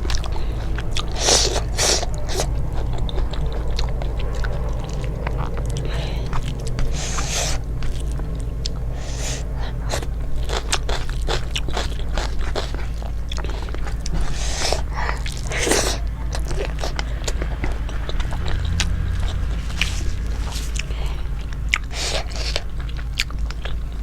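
Close-miked eating sounds: chewing and crunching food, with scattered small clicks and scrapes, over a steady low hum.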